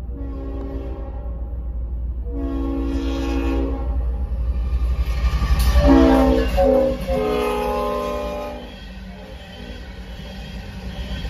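CSX GE ES44AC-H diesel locomotive sounding its air horn in long and short blasts, the pattern of a grade-crossing signal. The last blast is the loudest and drops in pitch as the locomotive passes about six seconds in. After that the horn stops and the coal hopper cars rumble past on the rails.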